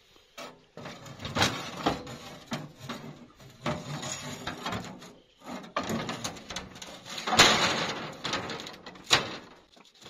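Sheet-metal cab panel clattering and scraping as it is handled and fitted around a truck's steering column and pedal levers, with irregular knocks. The sharpest clanks come about seven and nine seconds in.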